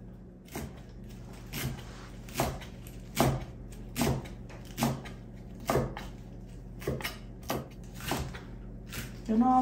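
A kitchen utensil knocking in a slow, regular rhythm, about one strike a second, over a low steady hum.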